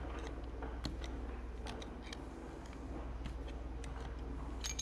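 Metal parts of a torque hub final drive clicking and clinking as a hand works a piece loose inside the hub, with a sharper click and a brief metallic ring near the end, over a low steady hum.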